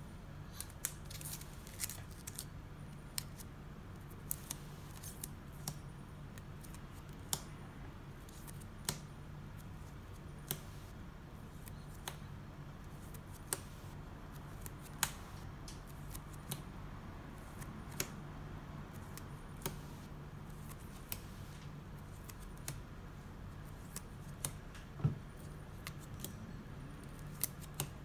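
Sleeved trading cards being handled and flipped through one by one: a crisp click of card and plastic sleeve about every second, over a low steady hum.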